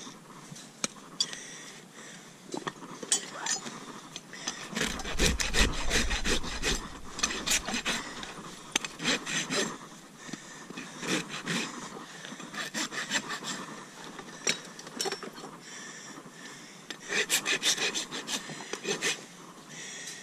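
Farrier's rasp scraping across a mule's front hoof in several runs of quick strokes with pauses between: the hoof being trimmed and levelled for shoeing.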